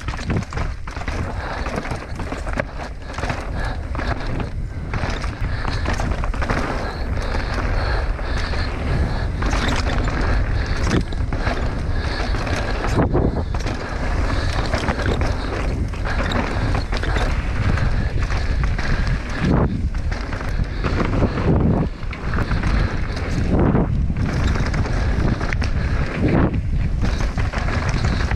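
Mountain bike descending rocky singletrack: tyres rolling over loose stone and dirt, the bike rattling and knocking over rocks. Wind is buffeting the action camera's microphone, making a steady low rumble.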